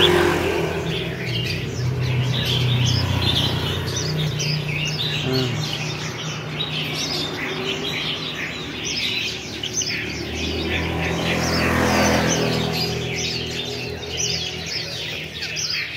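Many birds chirping in quick, overlapping high twitters, with a low steady hum underneath.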